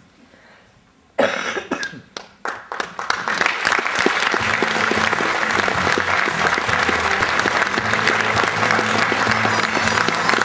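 Theatre audience applause, breaking out suddenly about a second in and quickly thickening into steady, dense clapping.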